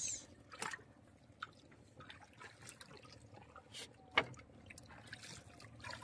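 Faint water trickling and dripping in the bottom of a wooden boat, with a few soft clicks, the clearest about four seconds in.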